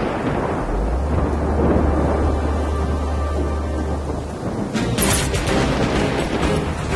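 Heavy rain pouring, with thunder rumbling and a low steady drone underneath for a few seconds. A sharp crack comes about five seconds in.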